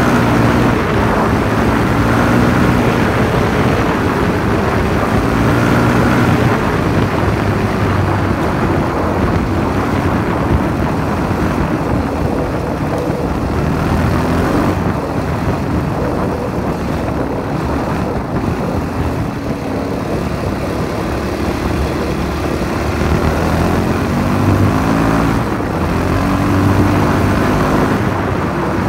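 Freshly rebuilt WR 450 dirt bike's single-cylinder four-stroke engine being ridden, revving up and easing off several times as it accelerates, with steady wind rush on the microphone.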